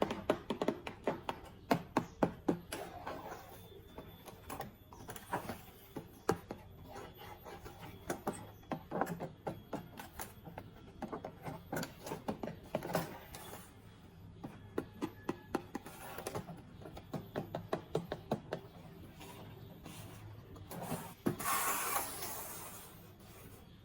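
Plastic toys and packaging being handled: runs of sharp clicks and taps, then a longer scratchy rustle about three-quarters of the way through.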